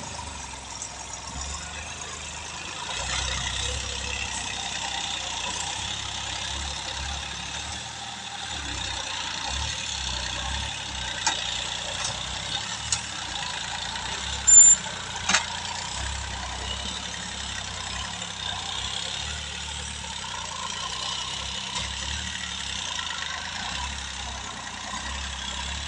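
Tractor's diesel engine running steadily as it drags a wooden leveling board over tilled soil, a continuous low drone. A few short sharp clicks come around the middle, the loudest one about halfway through.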